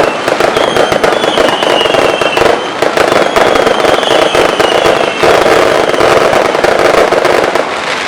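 Fireworks going off in a dense barrage: rapid crackling and bangs, with short high whistles that fall slightly in pitch about once a second.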